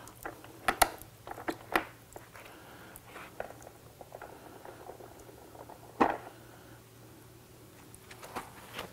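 A wash mitt being worked in a bucket of soapy water and then wiped over wet car paint, making scattered short splashes and dripping taps, with a louder slap about six seconds in.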